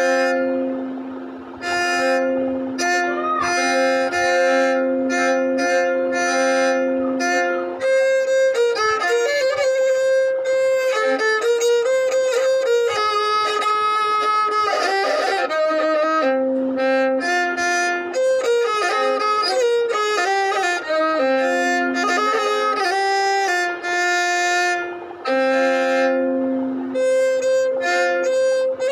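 Violin playing a melody over a steady held drone note.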